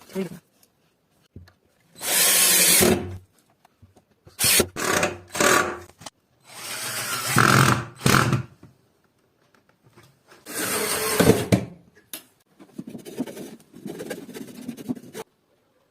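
Power drill run in a series of short bursts of about one to two seconds each, with pauses between; the last burst is weaker.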